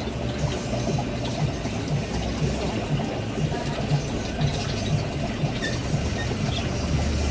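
Aquarium water bubbling with a pump running steadily, and a low throb about twice a second.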